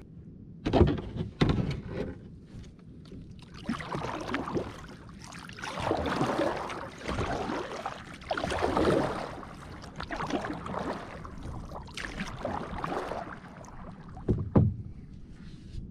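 Kayak paddle strokes swishing through the water, a surge roughly every two seconds, with a few sharp knocks in the first two seconds and another near the end.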